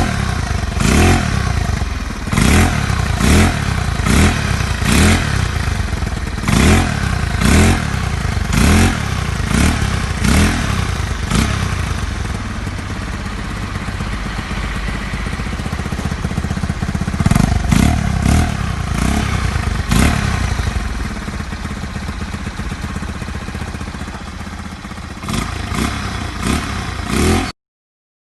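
Motorcycle running through a Sun Racing aftermarket exhaust pipe, the throttle blipped in quick revs about once a second, then idling. It revs again twice more before cutting off suddenly near the end.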